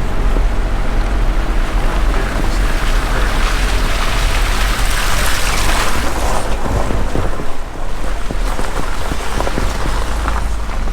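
Car interior while driving with the windows open: steady low engine and road rumble, with a rushing hiss that swells for a few seconds in the middle and a few small knocks near the end.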